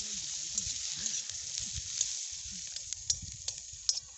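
Sliced onions sizzling in hot oil in a steel karahi over a wood fire, stirred with a spoon, with a few sharp clicks now and then. The sizzle thins out toward the end.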